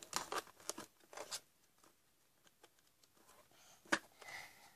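Hands handling toys and crinkly plastic: irregular rustles and light clicks, with one sharp click about four seconds in.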